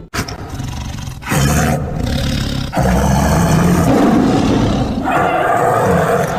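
Giant-monster (kaiju) roar sound effect: one long, rough, drawn-out roar that begins after a moment of silence, swells louder about a second in and again near three seconds in.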